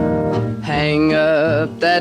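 Country band music from a 78 rpm record: an instrumental break with guitar, and a lead line of wavering held notes about halfway through.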